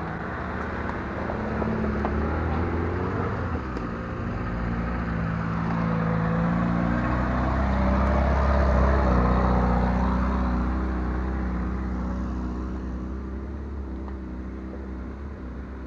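Land Rover Freelander engine revving hard as it climbs a steep, rough slope, the pitch rising as it pulls. It grows loudest about halfway through, then fades away.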